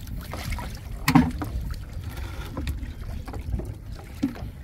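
Sea water sloshing around a crab trap as it is lifted and handled in the shallows, with wind buffeting the microphone as a steady low rumble. A brief louder knock or splash comes about a second in.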